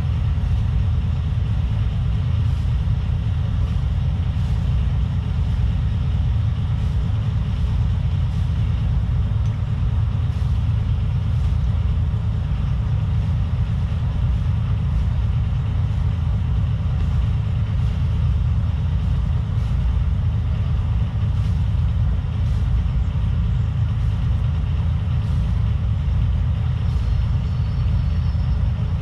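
Engine of a small passenger ferry boat running steadily under way, a constant low drone with water and wind noise over it.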